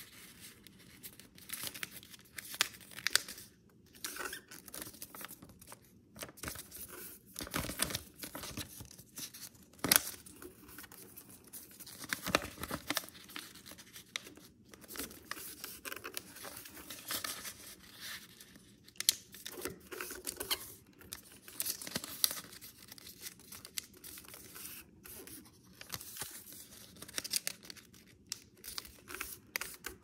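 Sheet of paper rustling and crinkling as hands fold it lengthwise into a long strip and press the creases flat, in irregular bursts with a few sharp crackles.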